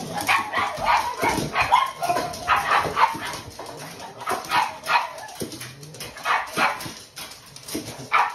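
Pugs barking and yipping excitedly, many short, high barks coming in quick succession.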